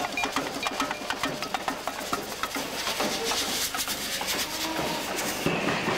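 Samba bateria playing in the street: a fast, dense clatter of drums and percussion.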